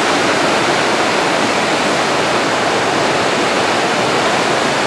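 Trick Falls (Running Eagle Falls) plunging into its pool below: a loud, steady rush of falling water.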